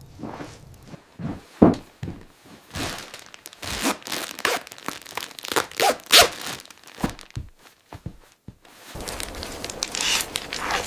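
A run of irregular rustling, crinkling and scuffing noises with sharp knocks, the loudest about a second and a half in and again about six seconds in. Near the end it gives way to a steady low rushing noise.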